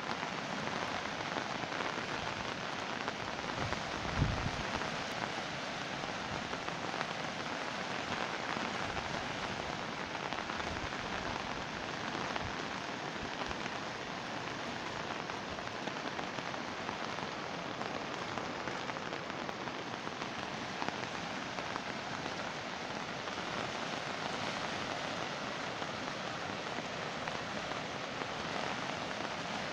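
Swollen, muddy river in flood rushing past in a steady, even roar of water, with a brief low thump about four seconds in.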